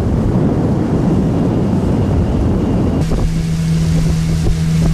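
Outboard motor driving a johnboat at speed, with wind buffeting the microphone. About three seconds in the sound changes abruptly to a steady, even engine hum.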